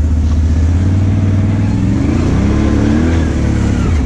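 Off-road vehicle engines running under load during a mud recovery, with a steady low engine note throughout. About a second in, one engine revs up as the stuck side-by-side's driver gives it gas against the pull, then falls back near the end.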